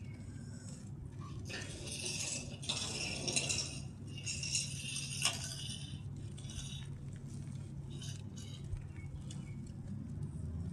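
Grainy mud crumbling into water: a crackly, gritty rustle with sharp little clicks, strongest through the middle few seconds and thinning out afterwards, over a steady low hum.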